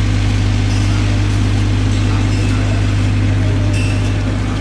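A motor running steadily with an even low hum that does not change.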